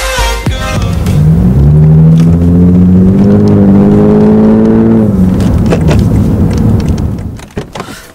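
Music stops about a second in. Then a Lexus car's engine pulls away: its pitch rises sharply, climbs slowly and steadily as the car accelerates for about four seconds, and then fades out.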